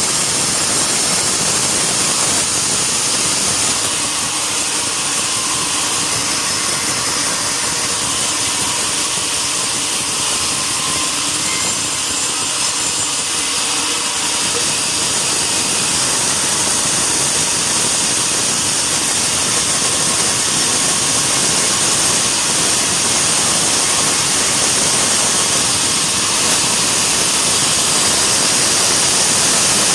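Sawmill machinery running steadily: a continuous, unbroken mechanical noise with a strong high-pitched edge, its loudness level throughout.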